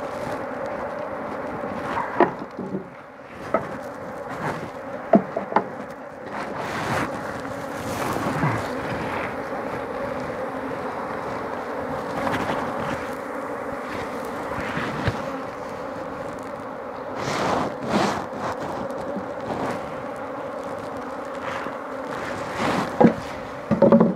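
A mass of honey bees (Apis mellifera) buzzing in a steady hum around an opened hive. Scattered sharp knocks and clicks come through it, a cluster of them near the end.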